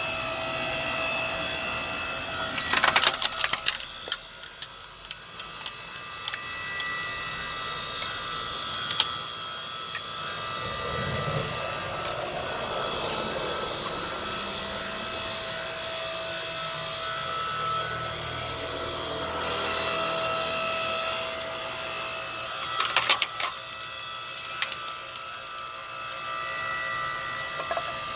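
Hydraulic log splitter running with a steady pump hum while its ram drives through logs, the wood splitting with a burst of sharp cracks about 3 seconds in and again about 23 seconds in. It is working normally after a repair of a hydraulic oil leak.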